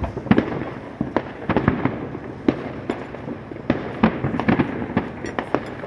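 Many fireworks going off at once: a dense, irregular string of sharp bangs and pops of varying loudness over a continuous rumble of further explosions.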